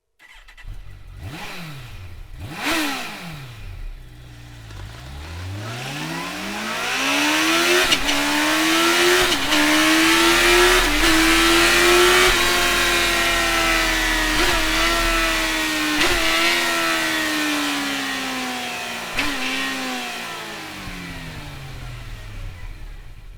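Kawasaki Ninja ZX-14R's inline-four engine and exhaust: two short revs, then the bike pulls away, rising in pitch and loudness. It holds high for a few seconds, then slowly falls in pitch and fades, with a few brief hiccups in pitch.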